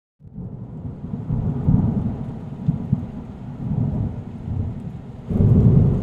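Thunder sound effect: a low rolling rumble that starts suddenly out of silence, swells and ebbs, and surges louder about five seconds in.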